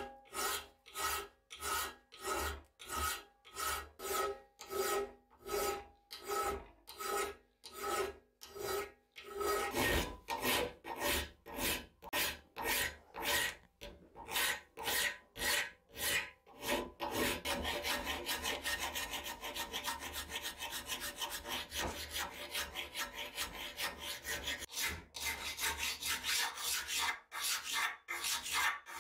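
Flat hand file scraping back and forth across the steel of an axe head clamped in a vise. The strokes are steady at about two a second, with a faint metallic ring, then quicken about halfway through into rapid, almost continuous rasping before slowing to separate strokes near the end.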